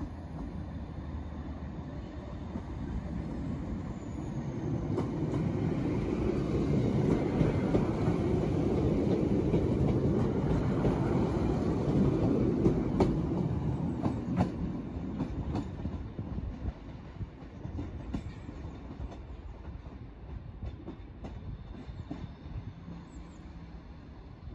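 Transport for Wales passenger train running past along the platform, its wheels rumbling on the rails and clicking over rail joints. The sound swells over a few seconds, is loudest around the middle, then fades as the coaches move away.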